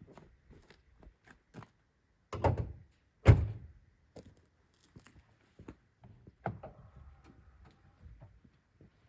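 A car door slammed shut once, about three seconds in, after a brief rustle of someone getting in; a lighter knock follows a few seconds later, with small handling knocks around it.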